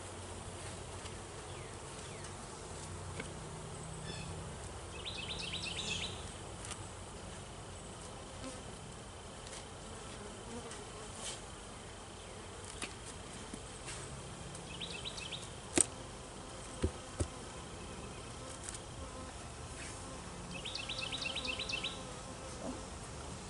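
Honeybees buzzing around an open hive, a steady low hum, with short bursts of high rapid chirping three times. A few sharp knocks near the middle, the loudest sounds, as the wooden hive cover is handled.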